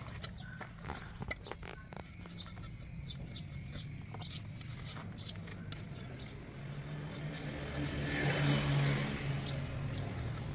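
A motor vehicle passing close by: its low engine hum swells from about six and a half seconds in, is loudest around nine seconds, then eases off. Light, scattered clicks and knocks come before it.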